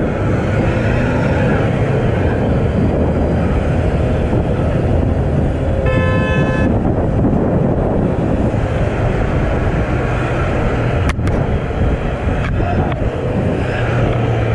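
Wind and engine noise of a motorcycle riding in traffic, recorded on a helmet camera, with one short vehicle horn blast about six seconds in. A sharp click comes about eleven seconds in.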